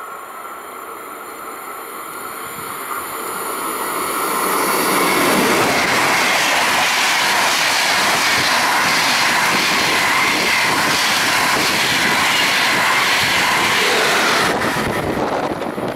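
SBB IC2000 double-deck intercity train, led by a red Re 460 electric locomotive, passing through the station at speed right beside the platform. A rush of wheels on rail and moving air builds over the first five seconds, holds loud and steady, then drops away suddenly near the end as the last coach goes by.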